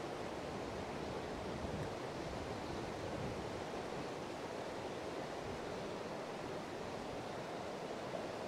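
River water rushing steadily past the bank, a continuous noise of fast-flowing current.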